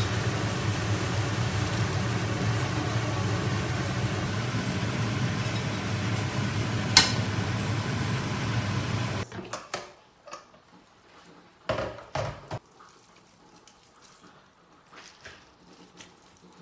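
Potato strips deep-frying in hot oil in a wok: a steady sizzling hiss with a low hum underneath and one sharp click about seven seconds in. The frying sound cuts off abruptly about nine seconds in, and a few soft knocks follow.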